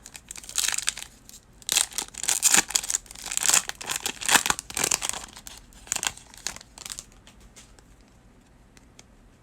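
A trading-card pack wrapper being torn open and crinkled in the hands: a run of sharp crinkling and tearing that stops about seven seconds in.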